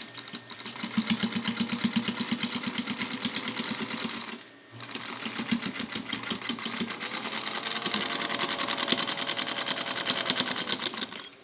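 1950 Zündapp sewing machine stitching at speed, a fast even clatter of the needle mechanism. It stops briefly about four seconds in, then runs on again until just before the end.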